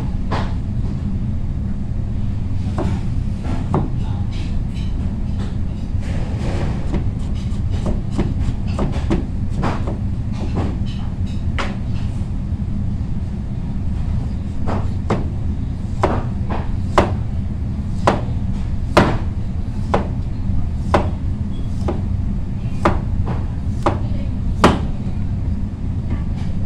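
Kitchen knife cutting through raw squash and knocking on a cutting board: sharp knocks, scattered at first, then about one a second in the second half. A steady low rumble runs underneath.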